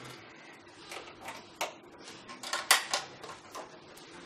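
Scattered clicks and knocks of instrument cable jacks being unplugged and plugged back into electric basses and amps, about a dozen sharp ticks with the loudest cluster past the middle.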